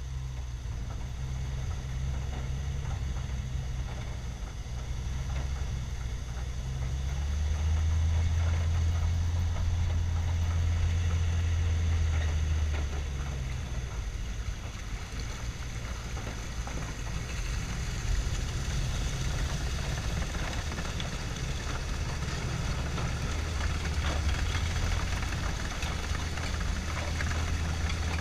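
Studebaker M29C Weasel's six-cylinder flathead engine running with a steady low drone that swells louder for several seconds about a third of the way in. In the second half, water churning and splashing at the tracks grows louder.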